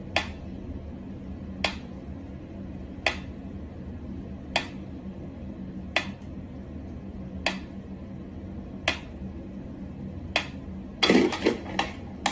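Mechanical pendulum metronome ticking slowly and evenly, about one tick every second and a half. Near the end, a quick flurry of louder knocks and clatter.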